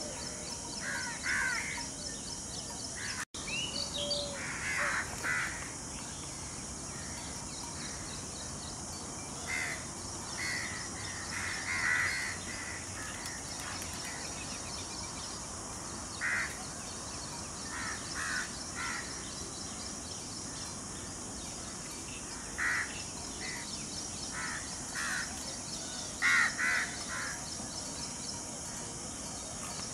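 Wild birds calling: short, harsh calls, some single and some in quick pairs, every second or two over a steady high hiss.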